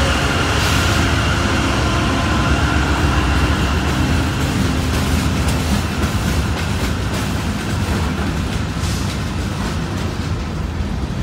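Freight train passing close by: the diesel locomotives' engine drone fades over the first few seconds as they go by, giving way to the steady rumble and clatter of freight cars' wheels on the rails.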